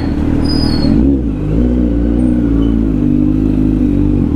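Kawasaki Z900 inline-four motorcycle engine running at low revs while riding slowly, with a brief rise in revs about a second in before it settles back to a steady pull.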